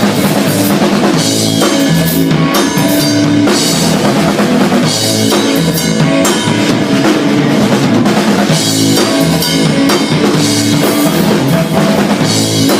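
Live rock band playing an instrumental stretch without vocals, the drum kit loud in the mix with kick and snare hits over bass and guitar.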